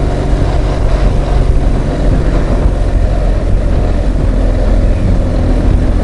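BMW R1200GS boxer-twin motorcycle engine running at a steady speed while riding, with a constant rush of wind noise.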